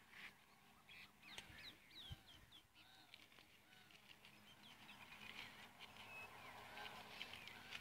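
Faint birdsong: many short, high chirps and twitters from small birds, with a soft low thump about two seconds in.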